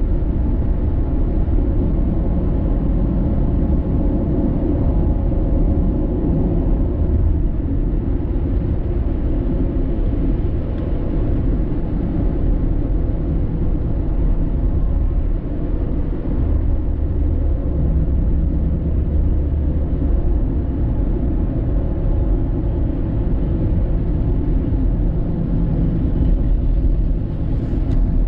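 Steady low rumble of a car driving along, tyre and engine noise.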